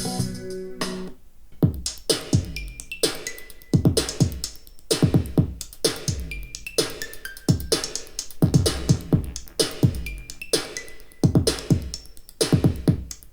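Music played back through hi-fi bookshelf speakers and picked up by a microphone: a held guitar chord fades out in the first second, then an electronic track starts with sharp drum-machine hits and short synth notes.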